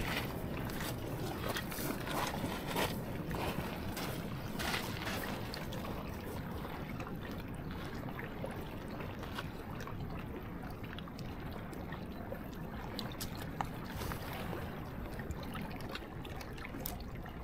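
Shallow water lapping and trickling around ice chunks grounded on a pebble shore, over a steady low rumble, with scattered faint clicks and crackles.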